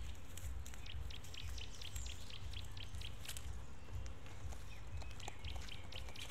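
Birds chirping in short, high notes, several a second, over a low steady rumble.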